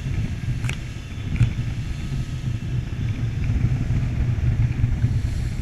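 Jeanneau Leader 650 motorboat running at high speed: a steady, heavy low rumble of engine and hull through the water, with two sharp knocks in the first second and a half.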